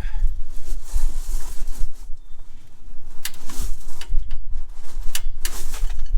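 Hand come-along's ratchet being worked, giving a few sharp clicks about three seconds in and again near five seconds, over a steady low rumble. The ratchet is slipping where a tooth is missing and the winch will not take another crank.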